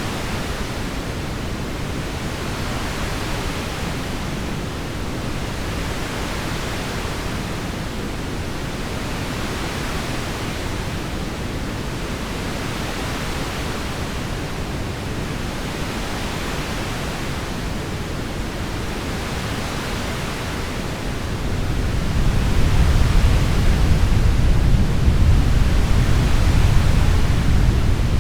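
Heavy rain falling steadily, an even hiss. About twenty seconds in, a low rumble of soft thunder swells up and rolls on under the rain, easing near the end.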